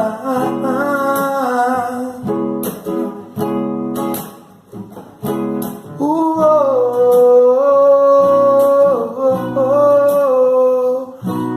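Song music: acoustic guitar strumming chords, with a long held melody line gliding over it from about six seconds in. The music drops briefly in level just before that.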